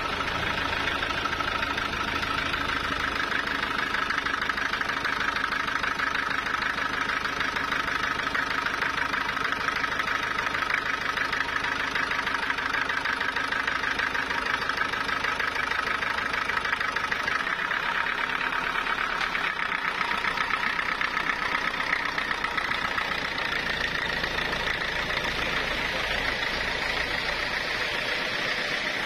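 Engine running steadily with a fast, even firing beat, its tone shifting slightly higher about twenty seconds in.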